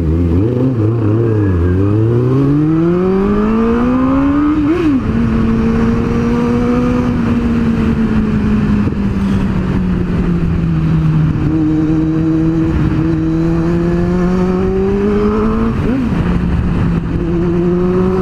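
Kawasaki Z750's inline-four engine and exhaust under way, loud, its pitch climbing steadily as the bike accelerates over the first few seconds. The pitch flicks up and drops back about five seconds in, then holds fairly level with a slow dip and rise, and flicks up and drops again near the end.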